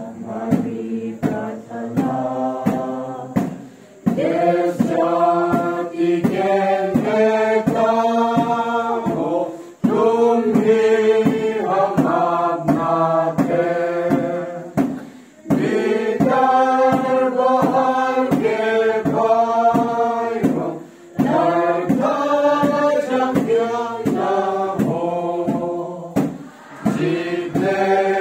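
A mixed group of boys' and girls' voices singing a song in Hindi together, unaccompanied. It comes in phrases of about five seconds with long held notes and short breaks between them.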